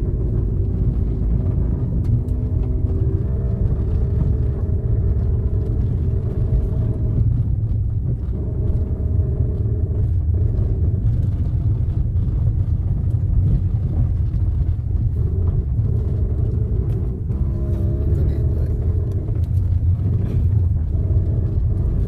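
Car driving on an unpaved dirt road: a steady low rumble of engine and tyres on the rough surface.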